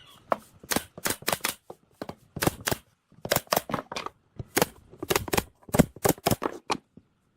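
Sharp knocks of a tool striking wood, about three to four a second in quick runs of two to four strikes, stopping shortly before the end.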